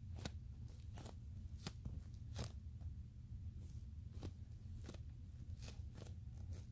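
Foam football squishy toy being squeezed and kneaded by hand, giving faint, irregular soft crackles about once or twice a second.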